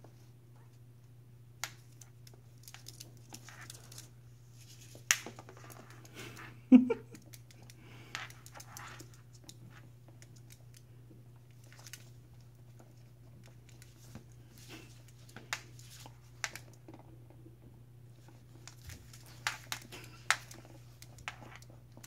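Scattered light clicks, taps and scrapes as a puppy and a caique parrot play on a vinyl floor, claws and beak knocking on the floor and a rubber ball, over a steady low hum. One louder short knock with a brief low voiced sound comes about seven seconds in.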